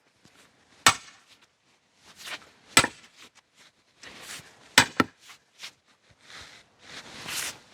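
Hammer blows driving a steel log-splitting grenade wedge into a log: three heavy strikes about two seconds apart, the last followed closely by a lighter one.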